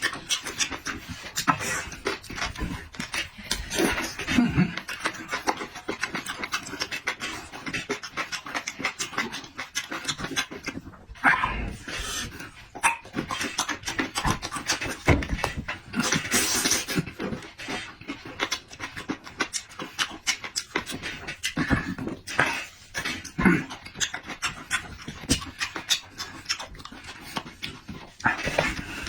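Close-miked eating sounds: a person chewing and smacking food, with many small wet mouth clicks and breaths.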